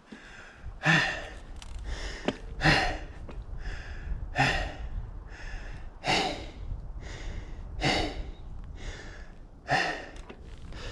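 A mountain biker breathing hard from exertion: six heavy, loud breaths about every two seconds, with quieter breaths between them. The breathing comes from physical exhaustion.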